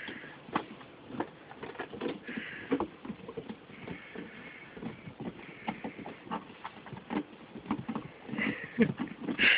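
A snow shovel pushed through snow by a dog holding its handle in his mouth: irregular knocks and scrapes of the shovel, with the dog's footsteps, loudest near the end.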